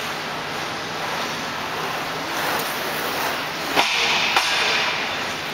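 Ice rink ambience with skate blades gliding on the ice. About four seconds in comes a sharp knock and a brief hissing scrape, then a second knock.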